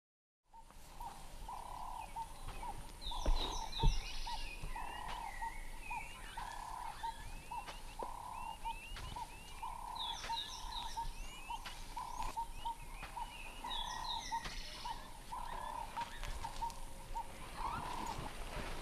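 Bush ambience: a short low call repeats about once a second throughout, joined every few seconds by phrases of bird song. Two low thumps land about three and four seconds in.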